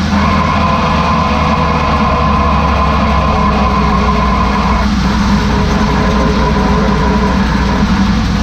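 Mercedes-Benz Sprinter van under way, its steady running rumble overlaid by a continuous high whine from the rear differential, the bad noise that marks a fault in the rear diff.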